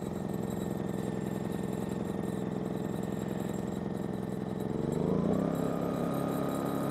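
Westinghouse iGen2200 inverter generator's small four-stroke engine running steadily, then speeding up to a higher, steady pitch about five seconds in.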